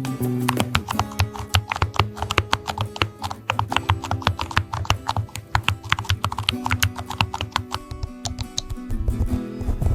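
Rapid typing on a computer keyboard, many quick keystroke clicks several per second, over background music with held notes.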